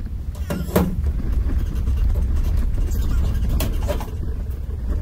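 A steady low rumble, with a few light knocks and clatters of tools and metal parts being handled on an aluminum panel.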